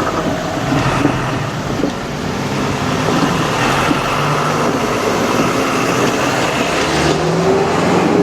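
A vehicle passing close by: a loud, steady rumble with a low hum whose pitch rises and falls near the end.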